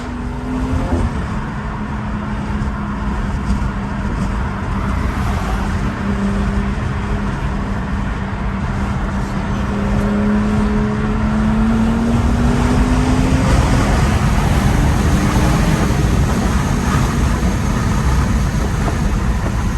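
High-horsepower BMW running on the road, heard from inside the car: a steady engine drone over road rumble. About halfway through, the drone climbs in pitch and gets a little louder as the car accelerates.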